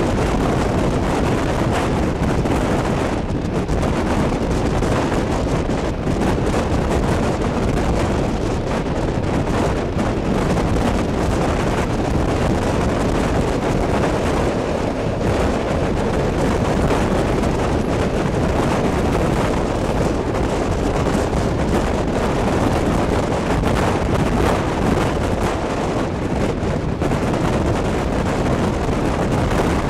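Wind buffeting a microphone held out of a moving train's carriage window, over the steady running noise of the passenger train.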